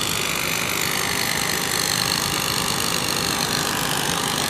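Small engine on construction equipment running at a steady speed.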